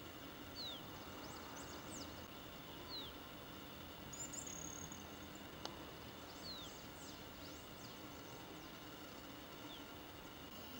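Birds calling faintly: a short high whistle sliding downward, repeated about every three seconds, among scattered faint high chirps and one buzzy note near the middle, over a steady background hiss.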